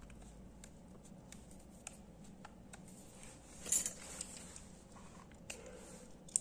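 Faint small clicks and light taps of a smartphone's plastic frame and back panel being handled, with one brief louder rustle a little past halfway.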